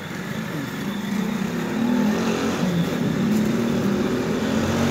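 Motorcycle engine running, growing steadily louder as it approaches.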